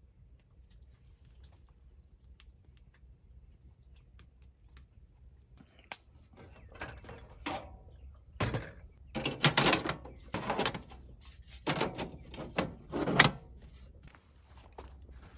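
A run of knocks, thuds and rustling from camping gear being handled. It starts about six seconds in after a near-quiet stretch and is loudest in the second half.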